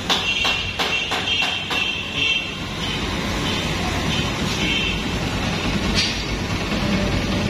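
Honda CG 125 single-cylinder four-stroke engine running steadily for a sound check after its tappets have been adjusted, with a run of light regular clicks in the first two seconds.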